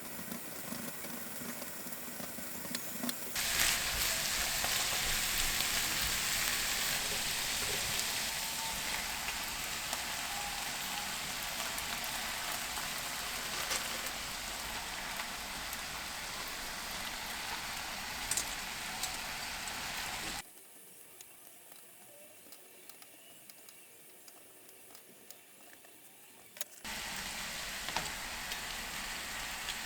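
Food sizzling in a frying pan: a steady hiss that steps louder about three seconds in, drops out for about six seconds past the middle, then resumes.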